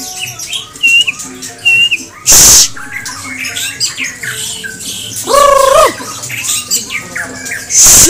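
White-rumped shama (murai batu) singing in its cage: a run of varied clear whistles, slurred chirps and trills, broken by loud harsh rasping notes about two seconds in and again at the end, with a short buzzy call near the middle.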